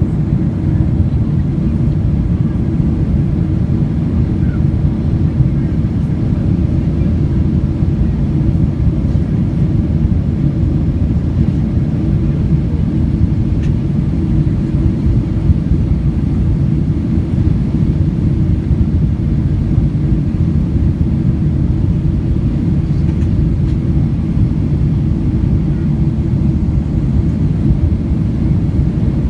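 Steady low rumble of engine and air noise inside the cabin of a Boeing 777-200ER airliner.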